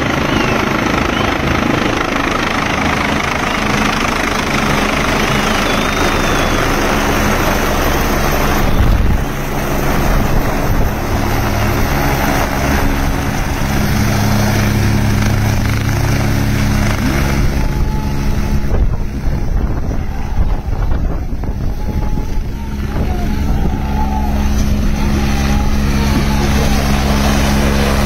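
Light helicopter coming in to land and settling on its skids, its rotor and engine running loud and steady throughout.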